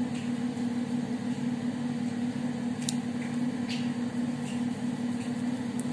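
Steady low electrical hum with a few faint clicks of knitting needles working stitches in wool.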